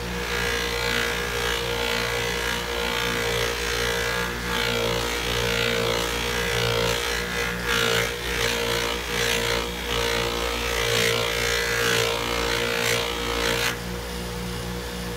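Small bench buffer's motor running steadily while an aluminium engine cover is pressed against the polishing wheel, a rough hiss that rises and falls as the part is worked and stops shortly before the end.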